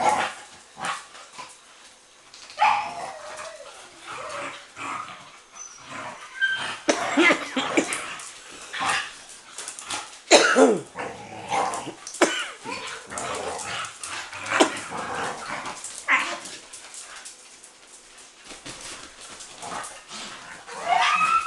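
Several young dogs play-fighting, barking and yipping in short, irregular outbursts that overlap one another.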